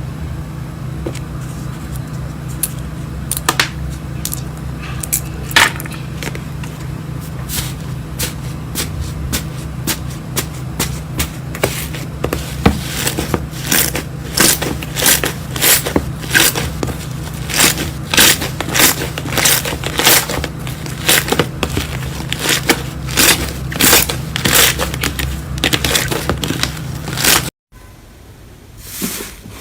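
Slime being squeezed and worked by hand, giving a stream of sharp clicks and pops that grow denser about halfway through, over a steady low hum. Near the end it cuts off abruptly to a quieter stretch.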